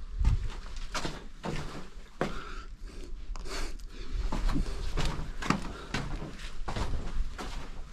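Footsteps and scuffs on stone in a cramped underground passage: a dozen or so irregular knocks and scrapes, about one or two a second, over a low rumble.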